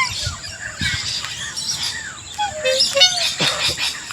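Birds calling: a string of short chirps and downward-sliding whistled notes, with a steady high-pitched whine underneath.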